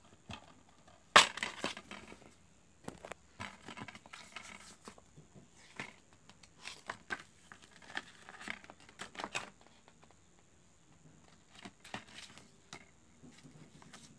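Handling of a plastic DVD case and its paper inserts: a sharp plastic click about a second in as the case snaps open, then scattered clicks, taps and paper rustling as the booklet and chapter card are leafed through.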